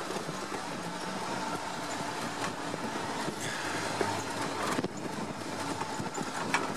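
LuAZ off-roader with a swapped-in Daewoo Sens 1.3 engine running as it drives over a bumpy dirt track, the open body and loose parts rattling. A sharp knock about four seconds in and another near the end as it jolts over ruts.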